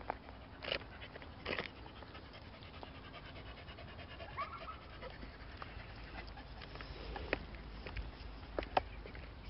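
A dog panting, with a few short sharp noises scattered through.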